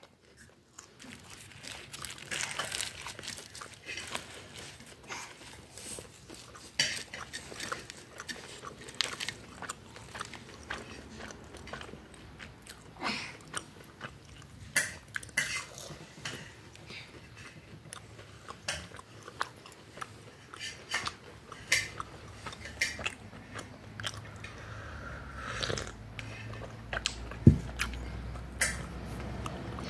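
Someone eating crisp, flaky flatbread close to the microphone: irregular crunchy bites and chewing.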